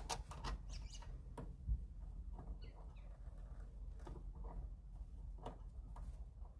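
Faint, irregular clicks and light taps of a screw and the Jeep Wrangler JK hood latch being handled while the latch screw is hand-started, spaced about a second apart.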